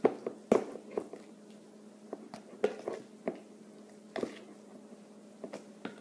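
Clear plastic tub of liquid slime mixture being handled and tilted: irregular light knocks and clicks of the plastic, over a faint steady hum.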